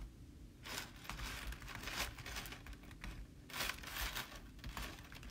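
Handling noise close to the microphone of the phone doing the recording: irregular rustling and crinkling in several bursts, starting about a second in, with a dull low rumble underneath.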